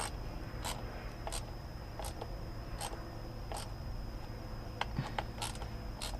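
Cricket chirping in short high-pitched strokes, a little more than one a second, over a steady low hum.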